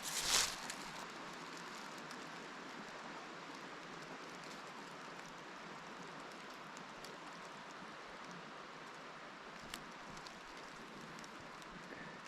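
Steady, even rush of a stream's running water, with a brief rustle right at the start and a few faint ticks.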